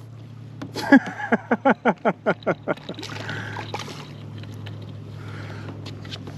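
Water sloshing and splashing against a kayak hull as a hooked redfish thrashes alongside. It opens with a quick run of about ten short pulses, roughly five a second, and ends in softer splashing.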